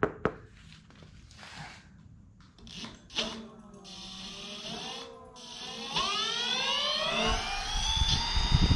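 Electric scooter's rear wheel motor whining as it spins, rising in pitch as it speeds up from about six seconds in and then holding steady, with low rumbling noise underneath near the end. A couple of clicks just before it.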